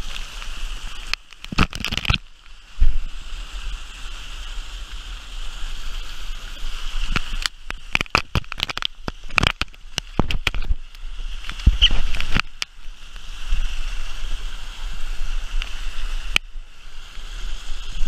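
Mountain river water rushing steadily, broken by clusters of sharp splashes about a second in, from about eight to ten seconds in, and again around twelve seconds.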